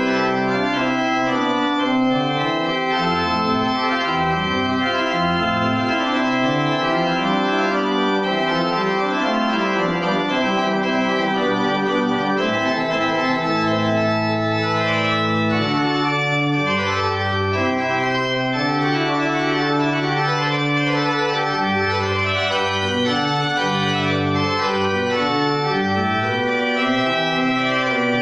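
Church pipe organ playing sustained full chords over a bass line that moves in long held notes, at a steady level.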